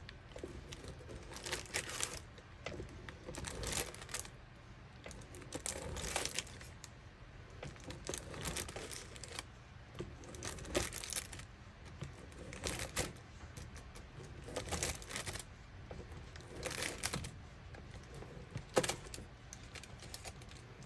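Knife slicing through a firm, chilled nut-filled fruitcake, one cutting stroke about every two seconds, about ten in all.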